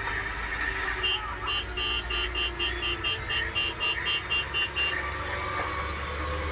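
Vehicle horn sounding a quick run of short, high beeps for about four seconds, starting about a second in, over the steady low rumble of the bus engine heard from the cabin.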